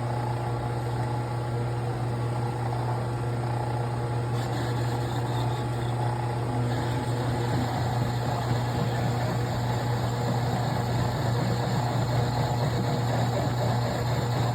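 Metal lathe running with a steady low hum while facing the boat transmission's output-shaft coupling flat. A faint higher hiss joins about four seconds in and drops away a few seconds later.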